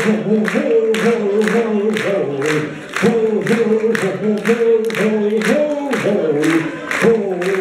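A man singing into a hand-held microphone amid a crowd of voices, while the audience claps along in a steady beat of about three claps a second.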